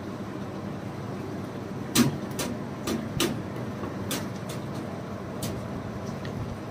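Wood fire crackling in a clay oven: irregular sharp pops, the loudest about two seconds in, over a steady low background noise.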